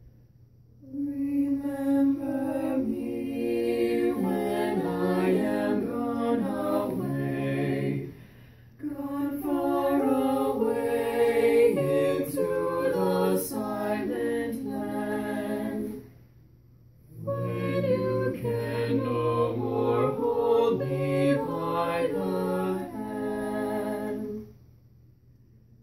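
Mixed vocal quartet of two female and two male voices singing a cappella in close harmony. They sing three long phrases with short pauses between them.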